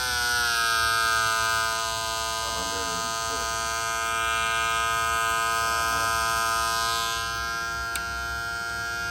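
Homemade 12-volt bicycle siren sounding through its small speaker: a steady, buzzy electronic tone held at one pitch.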